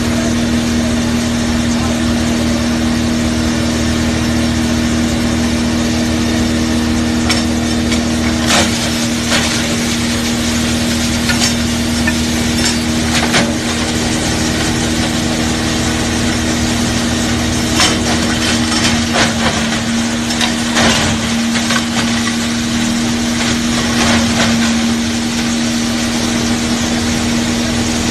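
Small wood grinder running steadily with a constant hum. Through the middle, irregular sharp cracks and crunches of wood being broken up in it.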